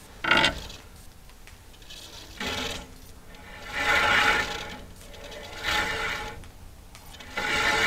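Woodland Mills HM126 sawmill's newly fitted band blade being spun by hand around its wheels, a rasping rub in about five short bursts, to check that the blade tracks on the wheels.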